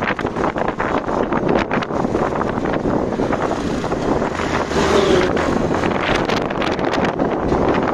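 Wind buffeting the microphone on a moving motorbike, a loud gusty rush, with a steady low engine and road hum beneath it.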